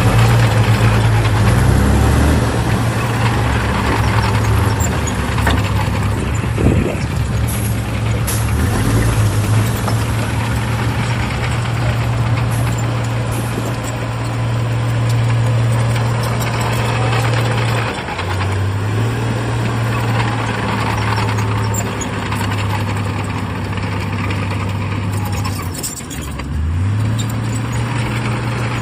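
Heavy diesel engine of earthmoving machinery running steadily, its pitch dipping briefly about 18 seconds in and again near the end before picking back up.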